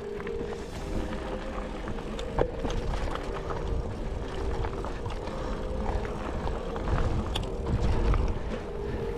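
GT Aggressor Pro mountain bike rolling fast along a dirt trail: tyre rumble with scattered clicks and rattles, and wind rumbling on the camera microphone, strongest near the end.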